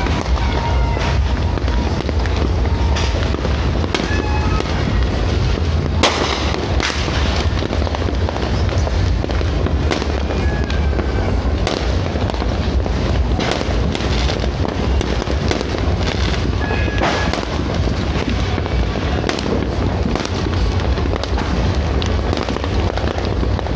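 Aerial fireworks going off: a steady run of pops and crackles over a constant low rumble, with one sharp bang about six seconds in. Short whistling tones sound now and then.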